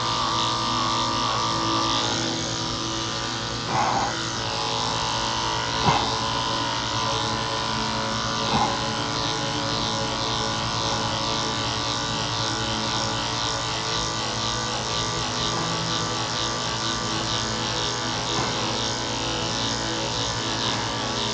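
Cordless electric dog clippers fitted with a #7 blade running steadily, with an even motor hum and buzz as they cut through a cocker spaniel's coat.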